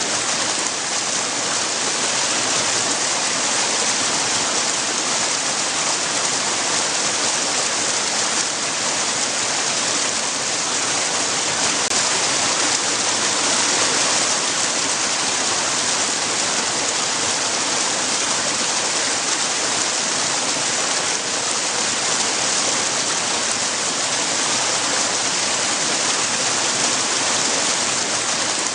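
Water rushing and splashing against rocks, a steady, unbroken hiss.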